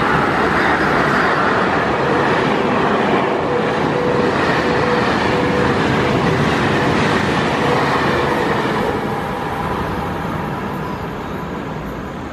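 A KTT double-deck passenger train hauled by a Lok2000 electric locomotive passing at speed close by. The wheels run steadily on the rails, with a faint steady tone partway through, and the sound fades over the last few seconds as the train goes by.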